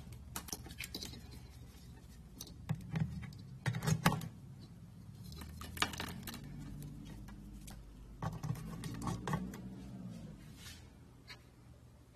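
Irregular clicks, knocks and light rattles of hard objects being handled, over a low steady hum.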